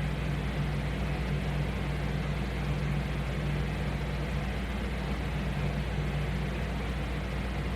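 Steady low mechanical hum with an even hiss, unchanging throughout: room machinery such as an air conditioner or fan running.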